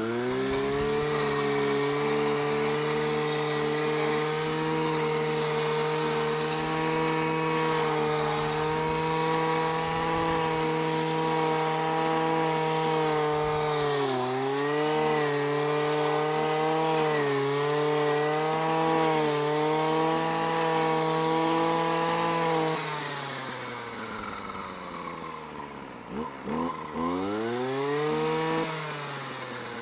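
Husqvarna 525 RXT brush cutter's two-stroke X-Torque engine running at full throttle while its metal blade cuts through tall grass, the pitch dipping briefly as the blade bites. About 23 s in the throttle is released and the engine drops toward idle, then it is revved up and let back down a few times near the end.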